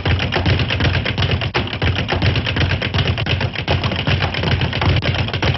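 Cartoon fight sound effects: a rapid, unbroken flurry of punch thumps and clatter, many blows a second.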